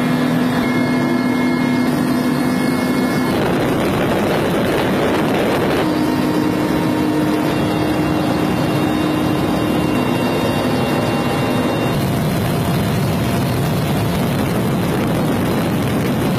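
Helicopter engine and rotor noise heard inside the cabin in flight: a steady, loud rush with a few steady tones under it.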